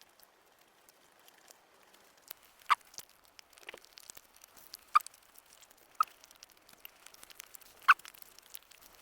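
A person eating close to the microphone: soft chewing with a few sharp, wet mouth smacks spaced a second or two apart.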